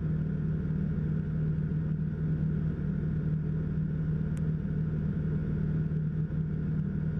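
Steady low drone of a Sirius TL-3000's Rotax 912 engine and propeller in cruise, heard inside the cockpit.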